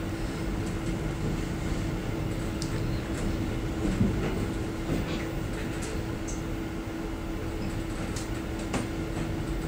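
Suburban train heard from inside its vestibule while rolling along the track: a steady low rumble with a constant hum, and scattered clicks and rattles from the carriage.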